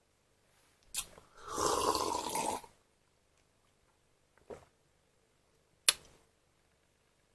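Handling noises: a sharp click, then about a second of rustling noise, followed later by a faint knock and another sharp click.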